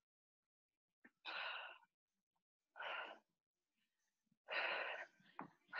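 A person breathing hard from exertion during a jumping exercise: three faint, forceful exhalations, about one every second and a half.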